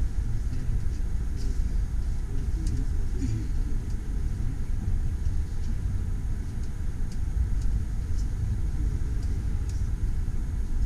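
Trenitalia passenger train running slowly, heard from inside the carriage: a steady, deep running noise, with faint scattered clicks.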